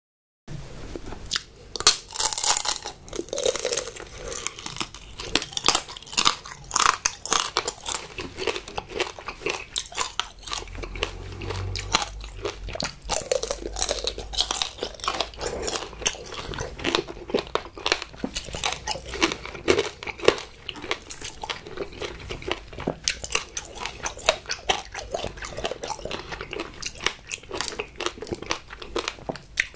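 Tanghulu being bitten and chewed: the hard, glassy sugar coating on the fruit cracks and crunches in quick, irregular snaps, which go on almost without pause.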